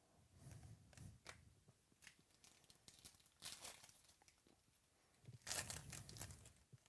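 Faint rustling and crinkling of trading card packs and cards being handled and torn open, in short scattered bursts, the loudest about five and a half seconds in.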